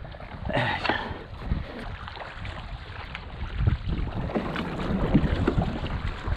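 Water splashing and sloshing around a folding kayak being paddled, with a brighter splash about a second in and wind rumbling on the microphone.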